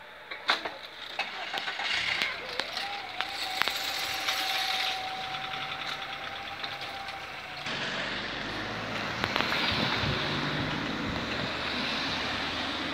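Electric drive of a level-crossing barrier lifting the arms: a few clicks, then a steady motor whine that rises in pitch as it starts and stops abruptly after about five seconds. Passing road traffic follows.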